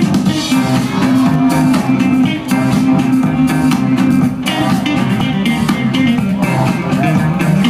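Loud dance music with a strong, moving bass line and a steady drum beat.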